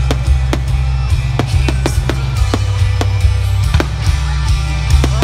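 Aerial fireworks going off in a string of sharp bangs, about eight in all at irregular intervals, over loud music with a heavy beat and bass.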